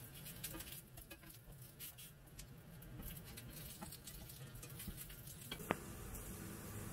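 Corn journey cakes frying in hot oil in a pan: faint, uneven crackling and spitting, with one sharp click near the end.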